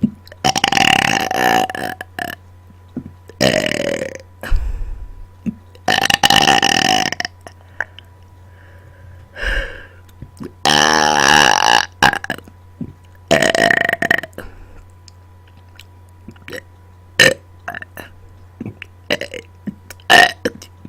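A person burping on command: five long, loud belches in the first fifteen seconds, the fourth one deep and drawn-out. They are followed by a few short clicks.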